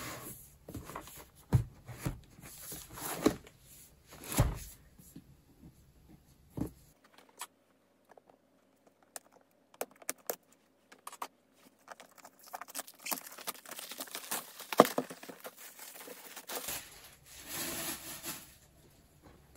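Plastic shrink wrap being torn and peeled off a cardboard keyboard box: irregular crinkling and rustling with scattered sharp crackles.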